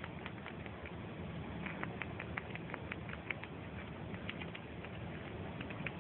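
Gray squirrel nibbling on a lemon slice: quick, irregular little clicks of its teeth, some in short bursts, over a steady low background hum.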